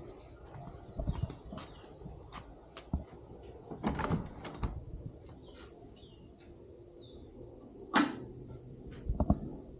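Scattered knocks and clunks, the loudest a sharp knock about eight seconds in, with small birds chirping in short falling notes and a steady high insect whine behind.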